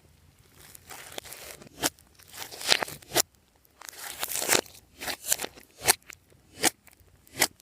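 Glossy slime being worked by hand, making sticky crackling and tearing noises with sharp pops about once or twice a second.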